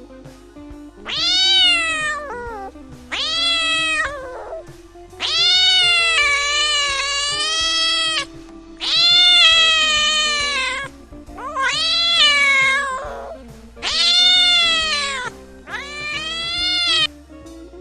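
A cat meowing seven times in long, drawn-out calls that rise and fall in pitch, the third call the longest, over background music.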